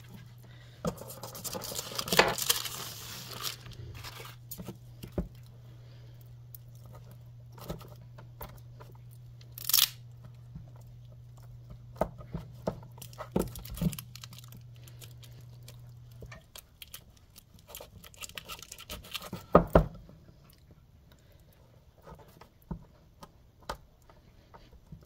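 Handling of a plastic-wrapped block of cheese wax: a burst of crinkling, tearing plastic about two seconds in, then scattered taps and knocks with a sharp click near ten seconds. A steady low hum runs beneath and stops about sixteen seconds in.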